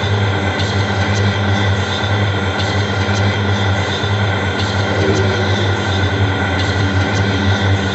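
Harsh noise-music drone: a loud, steady, dense wall of noise over a strong low hum, with several held tones on top and faint ticks now and then.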